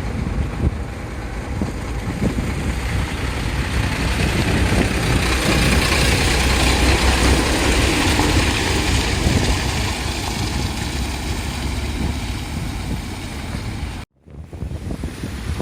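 An engine running with a heavy low rumble under a wash of noise, swelling to its loudest about halfway through. The sound cuts out abruptly for a moment near the end, then resumes.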